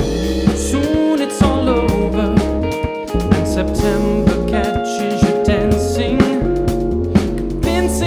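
A jazz-funk band playing live: drum kit, bass line, guitar and sustained keyboard chords with a steady beat.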